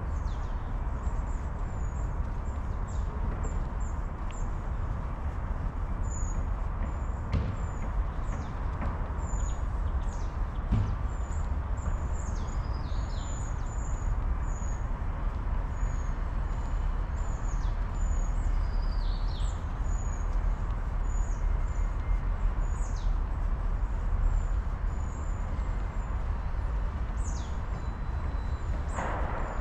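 Small songbirds chirping in the trees, many short high chirps scattered throughout, over a steady low rumble.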